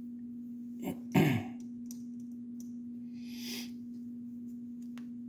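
Light clicks and a brief rustle of hands handling tools and parts at a 3D printer's hot end, with one louder short knock about a second in, over a steady hum.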